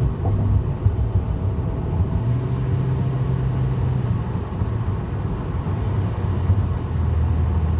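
Car engine and exhaust running at light throttle around 2,000 rpm while coasting, a steady low drone with a faint hum on top. The hum comes whenever the engine is under light load; a shop put it down to worn engine mounts letting the engine hit the subframe.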